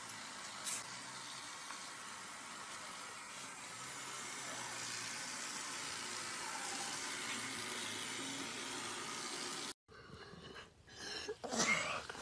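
Bathroom tap running steadily into a sink. About ten seconds in it cuts off abruptly, and a few short, louder sounds follow near the end.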